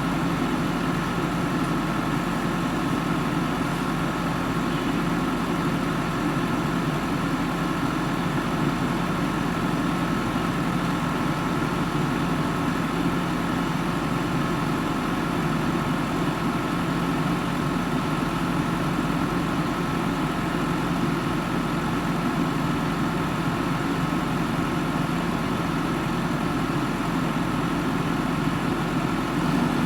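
Heavy diesel engine running steadily at an even speed, with no revving or load changes.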